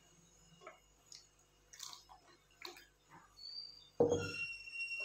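Wooden spatula stirring milk and custard in a nonstick pan, with faint wet scrapes and light ticks. About four seconds in comes a sudden clunk with a short ringing tone.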